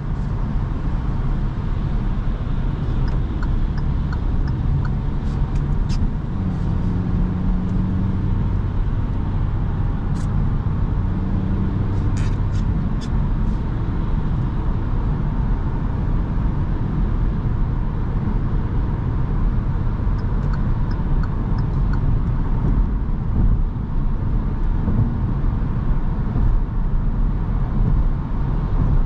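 Kia Rio's 1.2-litre four-cylinder petrol engine and tyre and road noise heard inside the cabin while driving at steady speed. A steady engine hum stands out from about six to twelve seconds in, and a few faint light clicks come and go.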